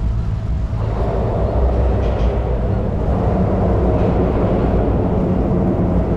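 Outboard motor of a 16-foot jon boat running steadily under way, a loud continuous low drone.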